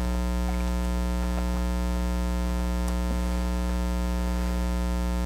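Steady low electrical mains hum buzzing without change, with a few faint clicks as the plastic model is handled.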